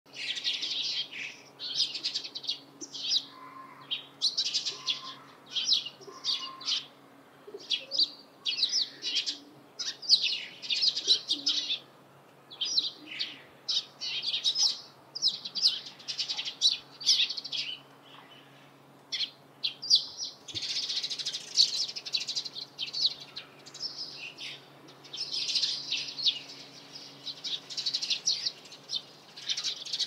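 Eurasian tree sparrows chirping: quick runs of short, high chirps that come in clusters, with a brief lull a little past the middle.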